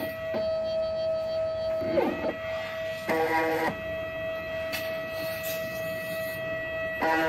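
Stepper motors of a small homemade wood-frame CNC pen plotter whining as they drive the pen across the paper. A steady high tone briefly slides down in pitch about two seconds in as an axis slows, and short buzzes of several tones together come around three seconds and near the end as the motors step at other speeds.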